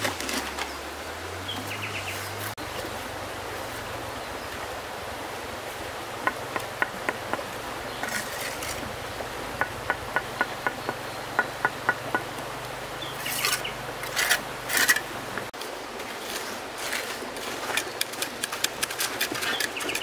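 Bricklaying with mortar: a steel trowel scraping mortar and tapping hollow clay bricks to bed them, short clinks in quick runs and a few louder scrapes, over a steady background hiss.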